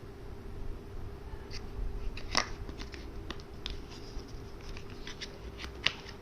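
Hands handling a smartphone box and its packaging: light scattered clicks and taps, with two sharper clicks about two and a half seconds in and near the end, over a steady faint hum.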